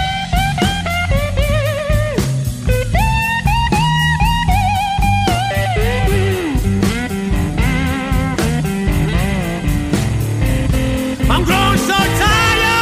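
Blues record playing: a lead guitar plays bent, wavering notes over bass and a steady beat.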